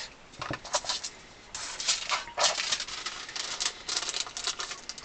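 Quick crackling and rustling of materials being handled by hand, a few scattered clicks at first, then dense crackle from about a second and a half in.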